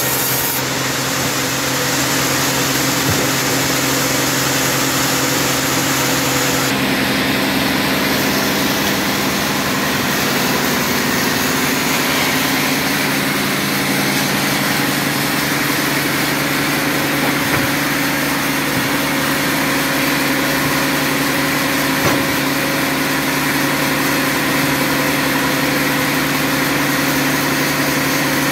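Log band saw in a sawmill running steadily, its motor and blade making continuous machine noise with a constant low tone.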